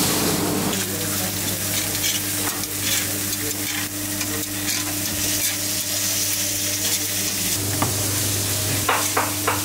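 Pljeskavica patties sizzling and crackling on a charcoal grill grate, over a steady low hum.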